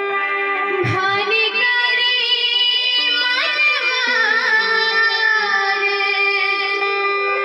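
A woman singing a Hindu devotional bhajan over sustained instrumental accompaniment, holding long notes and bending the melody in ornamented glides.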